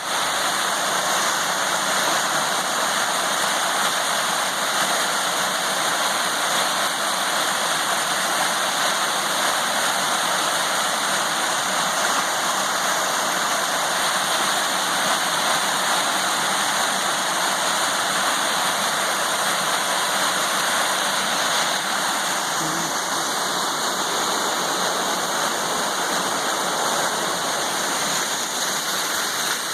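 Creek water rushing steadily over rocks, a constant even hiss with no breaks.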